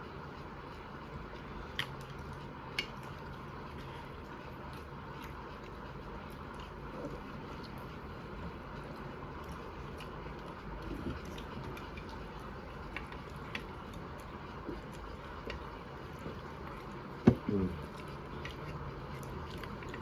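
Faint, scattered clicks of tableware over a steady background hum, with one sharper knock about seventeen seconds in, followed by a brief short squeak.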